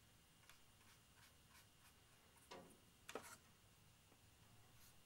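Faint, short scratchy strokes of a paintbrush working paint onto a plastic scale-model aircraft: a run of light brush strokes, then two slightly stronger strokes around the middle.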